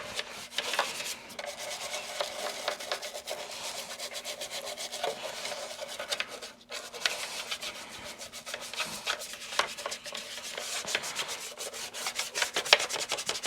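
A part of a vintage Hoover Decade 80 vacuum cleaner being scrubbed clean by hand: quick back-and-forth scrubbing strokes that run on, with a brief pause about six and a half seconds in.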